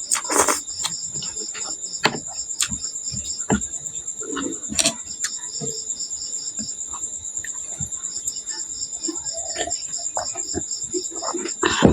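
Crickets chirping: a steady high trill, with a second pulsed chirp at about four pulses a second that stops for a few seconds midway. Over it come scattered clicks and short knocks of someone eating.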